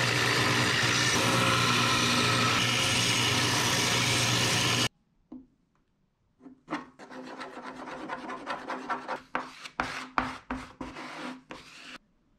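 A belt sander running steadily while a cast aluminum piece is ground on its belt, cutting off suddenly about five seconds in. After a short pause, a plastic spreader scrapes in quick strokes, mixing and spreading filler.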